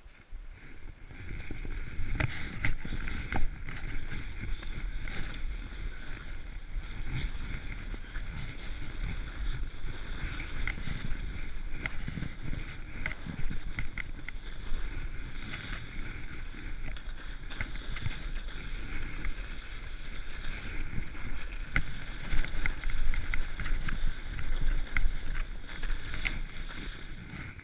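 Sled sliding fast over snow down a trail: a continuous rough scraping hiss with a low rumble and scattered small knocks, starting about a second in and dying away at the end as the run stops.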